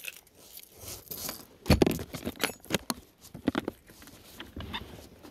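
Fishing lures and hooks clicking and rattling as they are handled over an open plastic Plano tackle box. Sharp, irregular clicks and knocks, the loudest about two seconds in.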